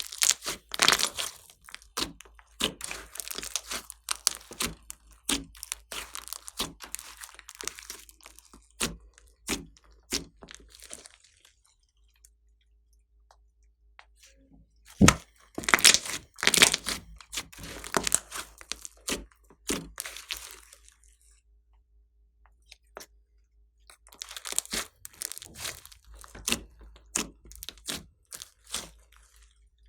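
Slime being pressed and stretched by hand, crackling and popping in three bouts of quick sharp clicks, with quiet pauses between them.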